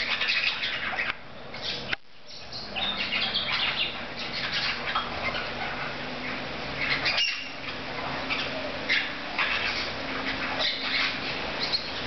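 A flock of small green parrots squawking and chirping in quick, overlapping short high calls while they crowd a hanging feeder, over a faint steady low hum.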